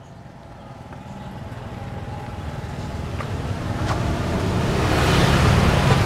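A motor vehicle approaching along the road, its engine and tyre noise growing steadily louder and loudest near the end.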